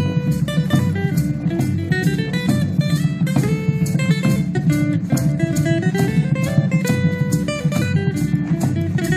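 Traditional Salvadoran folk music: strummed guitars and a stepping melody over a steady, quick drum beat.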